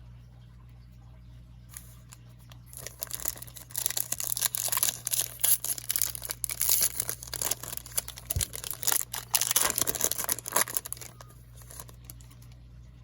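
A foil trading-card pack wrapper being torn open and crinkled by hand, a dense crackling that starts about three seconds in and stops near the end.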